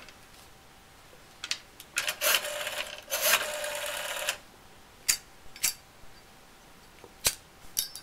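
Rotary telephone being dialled: the dial whirs back twice, a short return about two seconds in and a longer one just after, with sharp clicks of the handset and dial before and after.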